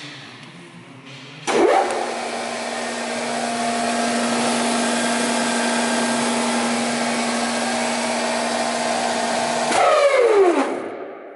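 Spindle moulder's motor switched on: it starts suddenly about a second and a half in and runs at a steady pitch with a steady whine, the bare spindle turning with no cutter fitted and no wood being cut. Near the end it is switched off and the pitch falls quickly as the spindle winds down.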